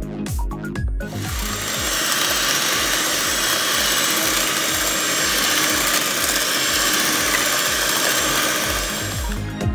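Electric hand mixer running steadily, its wire beaters whipping heavy cream in a metal bowl. It starts about a second in and stops just before the end, with background music with a beat at the start.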